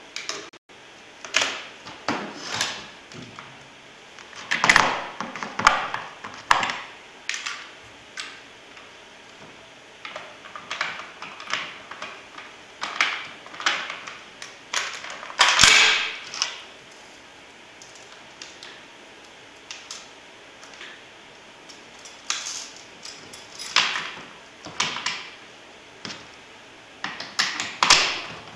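Steel parts of a field-stripped Baryshev rifle being handled and fitted back together: irregular metallic clicks and clacks with short sliding scrapes, a few every couple of seconds, the loudest clack about halfway through.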